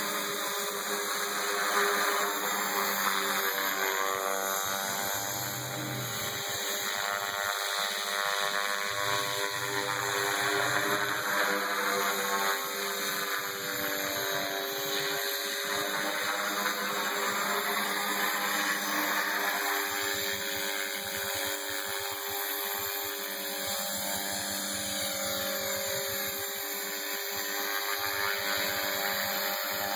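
Align T-Rex 500 flybarless electric RC helicopter in aerobatic flight: its motor and rotor blades run continuously, the pitch and loudness rising and falling a little as it flips and passes.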